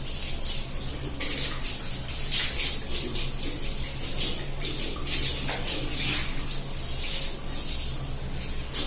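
Tap water running and splashing onto hair being washed directly under the tap, the splashing surging and easing unevenly.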